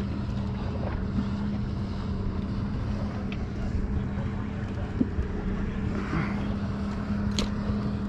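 A boat motor's steady low hum under wind and water noise, with a couple of light clicks.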